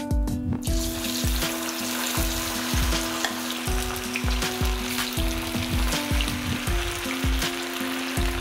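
Chicken pieces deep-frying in hot oil in a kadai: a steady, dense sizzle that sets in under a second in. Background music with a steady beat plays beneath it.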